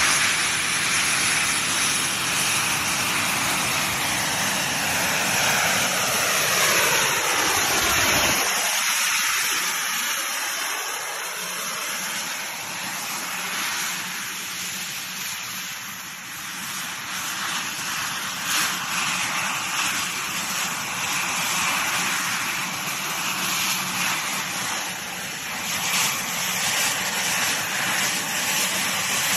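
Jetpack's small jet engines running with a loud, steady rushing noise during a low hover flight. Over the first several seconds the sound sweeps downward, and about eight seconds in the deep rumble drops away suddenly, leaving a high hiss that runs on.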